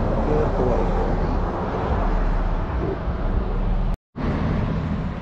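Steady rushing road and wind noise of a vehicle on the move, cut off abruptly for a fraction of a second about four seconds in before resuming.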